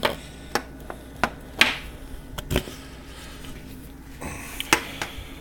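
Handling noise from a steel lightsaber hilt and its parts: a handful of separate sharp clicks and knocks with brief rubbing, like metal pieces being fitted and set down.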